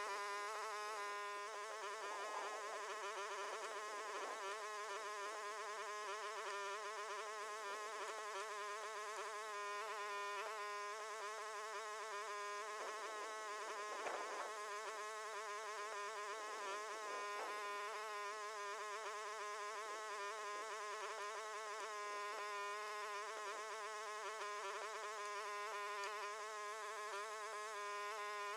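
Huayee HY14C mini excavator's engine running, heard as a faint, thin buzzing drone whose pitch wavers slightly as the machine works.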